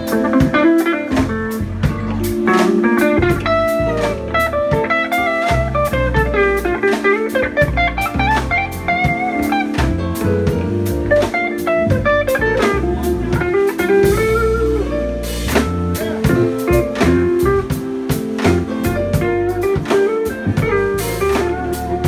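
Live band playing: electric guitars and keyboard over a drum kit, with a melodic guitar lead line running over the held chords.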